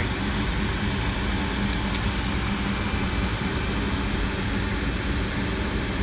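Amana gas furnace running with the burners lit, its blower motor and draft inducer motor giving a steady hum and rush of air. Two faint ticks come about two seconds in.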